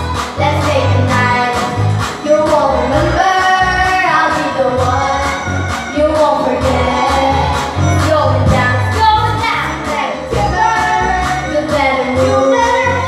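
Teenage girls singing karaoke together into handheld microphones over a backing track with a steady beat and bass.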